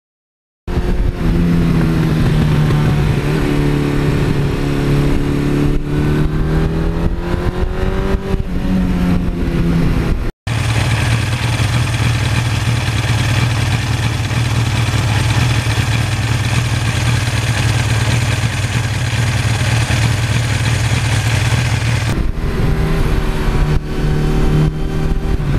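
1982 Suzuki GS1100E's air-cooled inline-four engine running under way. Its pitch rises and falls over the first ten seconds. After an abrupt cut it holds a steadier note, which changes again near the end.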